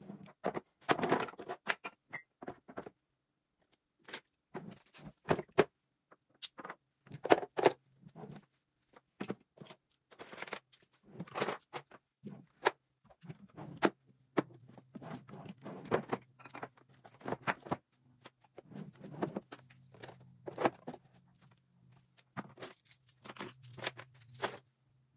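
Cosmetic bottles, tubes and plastic containers clicking and knocking as they are set down and sorted into vanity drawers, in irregular bursts. A low steady hum comes in about halfway through.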